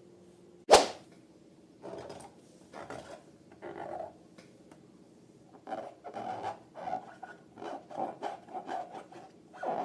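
Slime and balloon being handled by hand: a single sharp, loud snap under a second in, then a string of short, irregular squishing and rubbing sounds that come faster in the second half.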